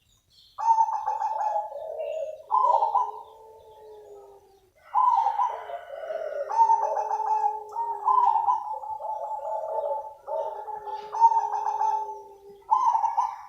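Zebra dove (perkutut) cooing: repeated phrases, each opening with a quick stutter of notes and running on into longer, lower coos, some phrases overlapping.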